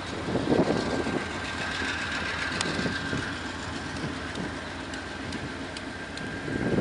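CSX diesel freight locomotives running at low throttle as they creep slowly along, a steady engine rumble with a thin high whine over it. The sound swells louder briefly about half a second in and again at the end.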